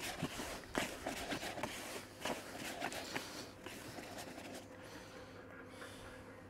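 Damp method-feeder groundbait being mixed by hand in a plastic bucket: irregular rustling and scraping of the crumbly mix, strongest in the first few seconds and fading out as the mixing stops.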